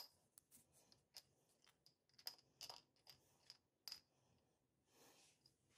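Near silence broken by faint, scattered clicks and taps: fingers handling a small glass jar with a metal screw lid.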